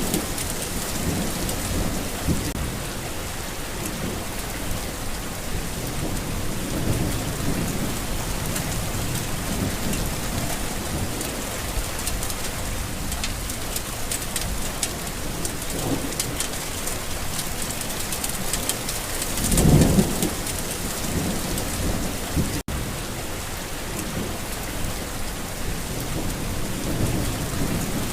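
Steady rain falling, with thunder rumbling low in the background. A louder roll of thunder comes about two-thirds of the way through, and the sound cuts out for an instant shortly after.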